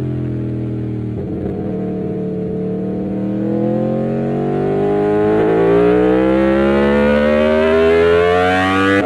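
Aprilia Tuono V4 1100 Factory's V4 engine pulling under load, its pitch climbing steadily from about a second in as the bike accelerates and the sound grows louder.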